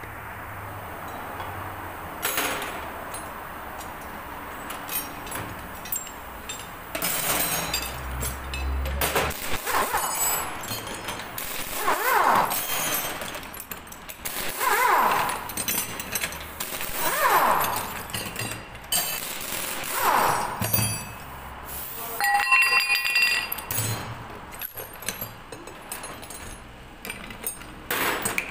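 Pneumatic impact wrench loosening a car's wheel lug nuts: four short bursts a couple of seconds apart, each dropping in pitch as it winds down, among workshop clatter, followed by ringing metallic clinks.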